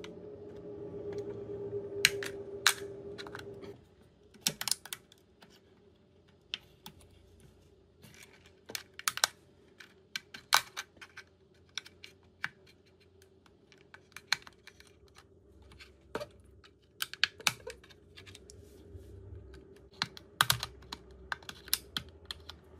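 Irregular small plastic clicks and taps as a plastic spudger pries at the top cover of a DJI Mini 4 Pro drone and the cover is worked loose and lifted off. A steady hum runs under the first four seconds and then stops.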